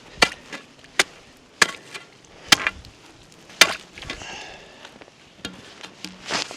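Thin, soft lake ice, about 1 to 2 inches thick, being struck hard five times about a second apart, chopping to test its thickness. A softer crunch follows near the end.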